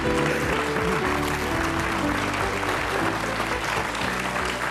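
Studio audience applauding steadily while the show's closing music plays.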